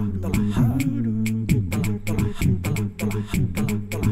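Background music: a vocal track with a steady beat of about two strokes a second over a sustained bass.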